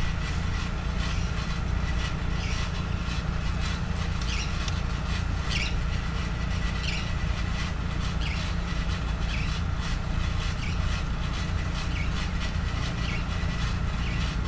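A steady low rumble, with faint light ticks about once a second.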